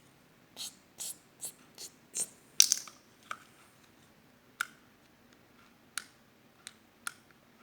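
About a dozen light, sharp clicks and taps at irregular intervals, from small plastic toy pieces being handled and set down. The clicks come thickest in the first three seconds and thin out toward the end.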